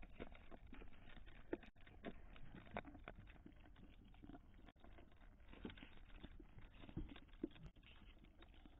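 Faint, irregular clicking and tapping from kittens jostling inside a cat feeder box, their paws and bodies knocking against the box and camera.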